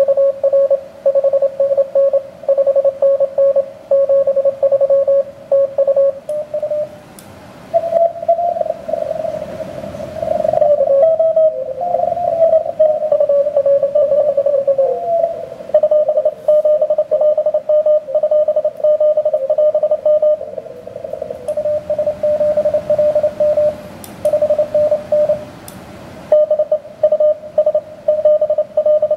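Morse code (CW) signals heard through an HF transceiver as a keyed tone of about 600 Hz. In the middle several stations send at once at slightly different pitches, which slide as the tuning dial is turned, over washes of band hiss.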